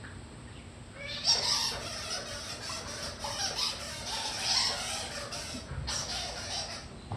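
Water splashing and churning as a spectacled caiman thrashes while taking its food. It starts suddenly about a second in, lasts about six seconds, and has some wavering higher-pitched sounds mixed in.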